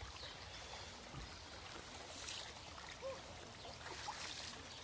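Shallow stream running steadily, with water splashed twice by children wading in it, the second time about four seconds in.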